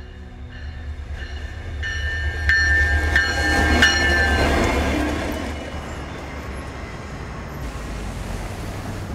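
Alaska Railroad diesel locomotive passing: a low engine rumble that swells and fades, with wheels clacking and a high metallic squeal at its loudest. Near the end it gives way to the steady noise of street traffic.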